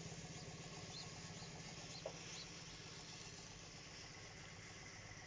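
A faint, steady engine running at a distance, its low hum evenly pulsing. A few faint high chirps come in about one to two and a half seconds in.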